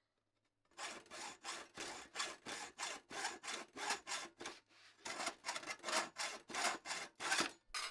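Hacksaw cutting a thin metal piece: quick back-and-forth strokes, about three a second, starting under a second in, with a brief pause about halfway.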